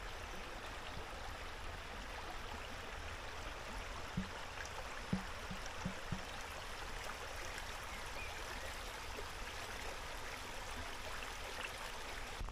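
Shallow stream running steadily over stones below a fish ladder. A few faint, short low knocks come about four to six seconds in.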